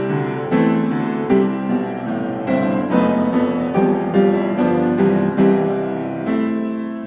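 Background piano music: a calm run of struck notes and chords, each fading after it is played.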